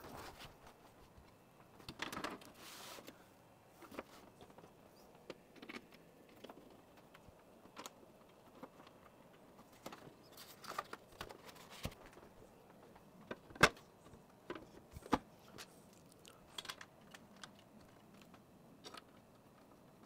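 Quiet handling of a HellCrack midi PC case as its side panel is fitted and the case is moved: scattered light clicks and knocks, a brief rustle about two seconds in, and two sharper clicks a little past the middle.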